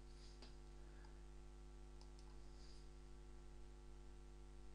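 Near silence: a steady low electrical hum in the recording, with a few faint clicks.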